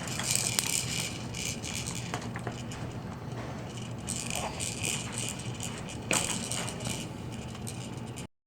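Plastic rattle toys on a baby's Jumperoo activity jumper rattling and clicking as the baby plays with them, in three bursts: one at the start, one about four seconds in and one about six seconds in.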